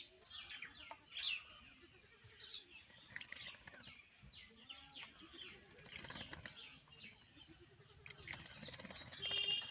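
A bird bathing: several bursts of rapid wing-fluttering, the longest near the end, with short chirps in between.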